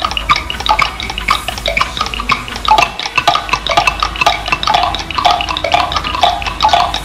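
Mashup music track: a busy stream of short tinkling, clinking notes, several a second, over a steady low hum.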